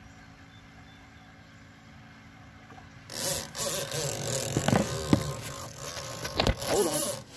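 Low steady background for about three seconds, then loud rubbing, scraping and knocking as the phone recording is grabbed and jostled against the canoe, with a few short squeaks among the handling noise.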